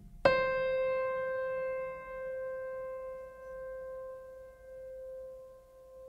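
Background music: a single high piano note struck about a quarter second in, left ringing and slowly fading, its loudness gently swelling and dipping as it dies away.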